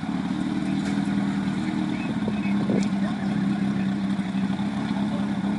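An engine running steadily at a constant low pitch, with no revving.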